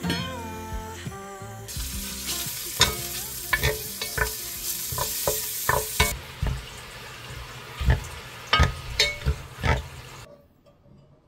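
Meat sizzling as it is stir-fried in a little oil in a stainless steel pot, with a wooden spoon scraping and knocking against the metal. About six seconds in the sizzle dies down while the spoon keeps knocking as it stirs meat and seaweed in liquid. The tail of background music fades at the start.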